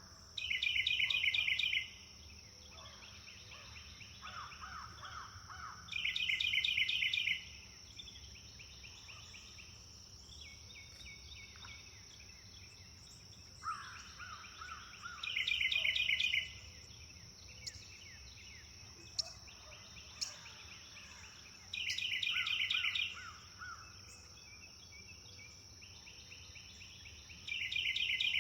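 Several songbirds singing: one repeats a loud, fast trill of rapid notes about every six seconds, five times, while softer, lower trills and scattered chirps come in between. A steady high hiss runs underneath.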